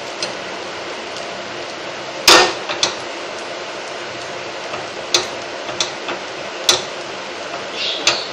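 Metal spoon clinking and scraping against a cast-iron appe pan as the appe are turned, several sharp clinks with the loudest a little over two seconds in. Underneath, a steady frying sizzle from the pan.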